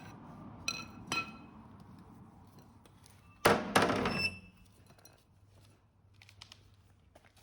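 Metal tools being handled: two light clinks with a ringing tone about a second in, then a louder metallic clatter and clunk about three and a half seconds in that rings briefly.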